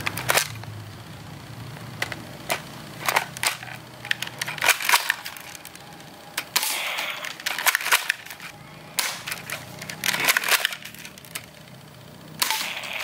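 Toy sniper rifle being worked and fired at small targets: a quick irregular series of sharp clicks and snaps, with a low hum underneath in stretches.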